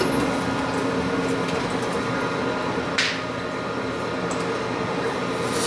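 Grizzly G0602 CNC lathe turning aluminium tube under flood coolant: a steady machine hum with coolant spraying and splashing. A short hiss comes about three seconds in.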